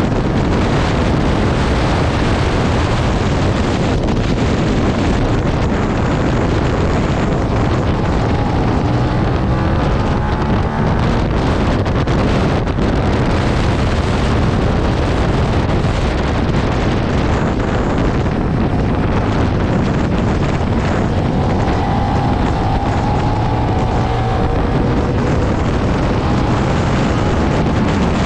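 Suzuki SV650's 645 cc V-twin engine running hard at track speed, its note rising and falling with the throttle, under a heavy rush of wind noise on the microphone.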